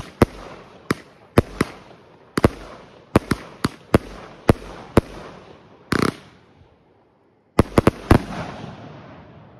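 A 36-shot consumer firework cake with salutes mixed in, firing shot after shot: a sharp bang about every half second, with crackle and hiss trailing between them. The firing stops for about a second, then a quick run of four bangs ends the volley and the crackle fades away.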